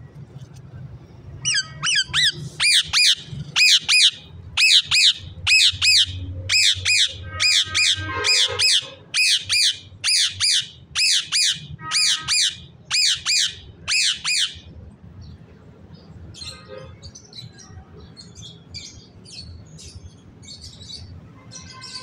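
Indian ringneck (rose-ringed) parakeet giving loud, high-pitched squawking calls, about two a second, starting a second or two in and stopping about two-thirds of the way through. Softer, scattered chirping follows.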